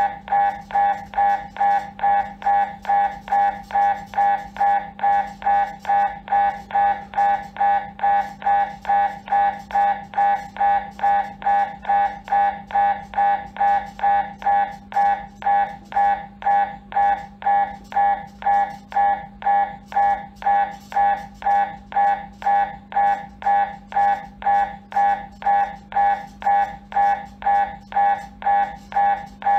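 MRI scanner's gradient coils pulsing through an imaging sequence: a steady rhythm of about two loud tonal beeps a second, each with higher overtones, over a constant low hum.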